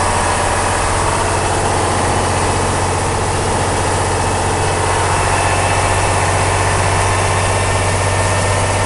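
Praga V3S truck's air-cooled six-cylinder diesel engine running steadily, heard from inside the cab.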